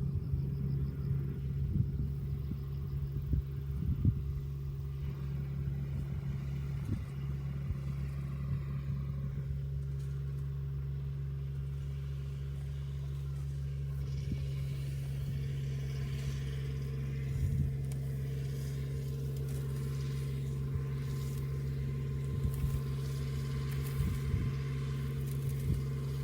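A farm machine's engine running steadily at constant speed, a low even hum, with a few faint knocks and rustles.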